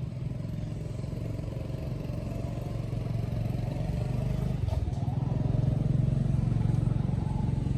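An engine running steadily, its low hum growing louder a little past halfway through.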